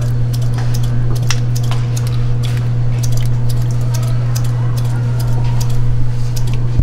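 A loud, steady low hum with frequent small clinks and taps of utensils and dishes, irregular and sharp, over it.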